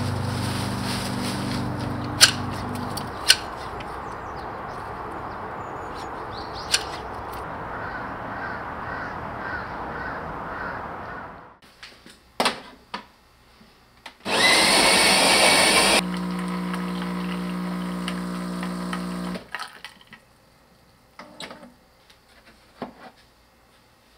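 Garden shears snip a few times through leafy stems amid rustling. Then a fully automatic coffee machine runs: a loud whir lasting under two seconds, followed by a steady hum of about three seconds as it brews, and a few light clicks of the cup and tray.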